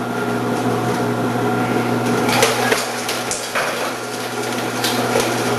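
Continuous-feed vegetable slicer (Omcan HLC 300) running with a steady motor hum, its 2 mm slicing disc cutting cucumbers. A few sharp knocks and clatters come as the cucumbers are pushed down the chute and sliced.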